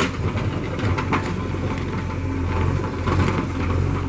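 Diesel engine of a JCB 3DX backhoe loader running steadily at work, with repeated short metallic clanks and knocks over it.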